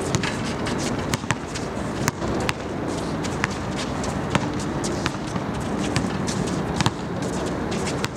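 Basketball players running on an outdoor court: scattered sharp knocks of the ball bouncing and shoes striking the court over a steady background noise.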